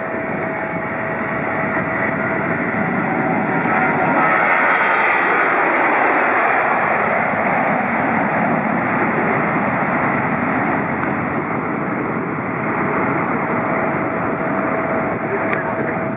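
Jet airliner engines running loud, the noise swelling to a peak about five seconds in and then holding strong, with a steady whine underneath.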